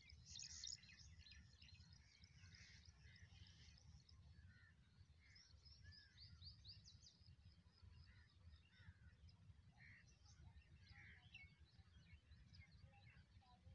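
Faint birds chirping, many short irregular calls, over a steady low rumble.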